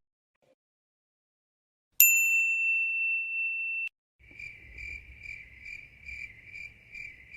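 A single bright ding about two seconds in, ringing steadily and cutting off abruptly, then the cricket-chirping sound effect: an even, pulsing chirp about two to three times a second over a faint low hum.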